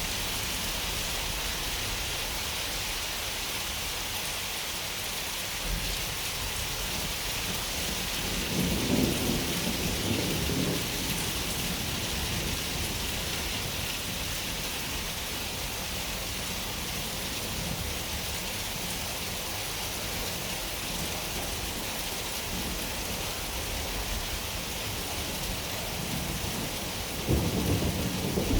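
Steady rain hissing, with two rolls of thunder: one rumbling for a couple of seconds about nine seconds in, and another starting just before the end.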